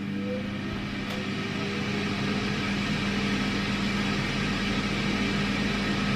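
Philips Airfryer XXL's fan running with a steady hum and an airy rush, growing a little louder over the first couple of seconds and then holding steady.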